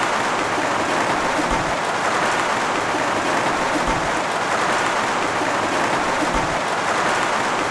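Steady rain, a dense even patter with no break, with a faint low thud repeating about every two and a half seconds.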